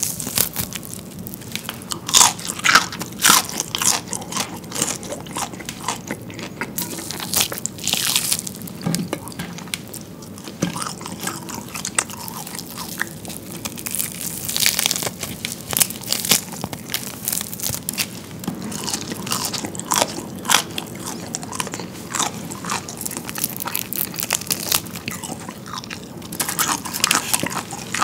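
Close-up eating sounds of freshly fried chicken: irregular bites into the battered skin and chewing, with the meat being torn apart by hand. The batter, only just out of the fryer and not yet set, gives a softer, less crisp crunch than cooled fried chicken.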